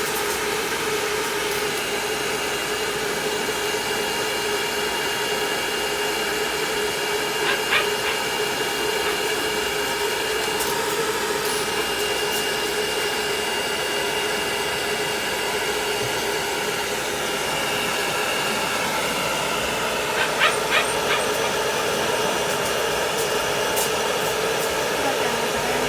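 Hair dryer blowing steadily while a cat is dried, with a few brief sharp sounds about eight seconds in and again around twenty seconds in.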